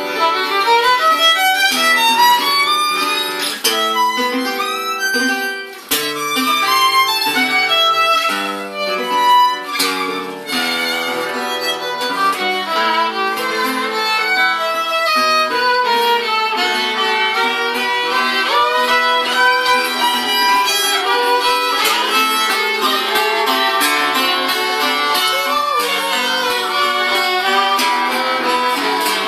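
A violin and a Selmer-style gypsy jazz guitar with an oval soundhole improvise together as a duo. The first ten seconds or so are quick, sharply attacked notes; after that, long wavering lines come to the fore.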